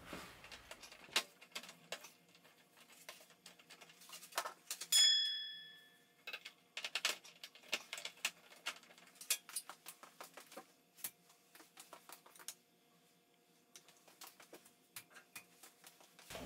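Scattered clicks, taps and light knocks of LED tubes being handled and seated in a ceiling fluorescent fixture's sockets, with one short ringing ping about five seconds in.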